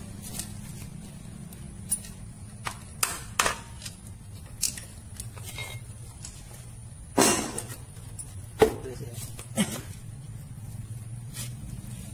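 Scattered clicks and knocks of metal engine parts and tools being handled as a motorcycle engine is taken apart, the loudest a heavier knock about seven seconds in, over a steady low hum.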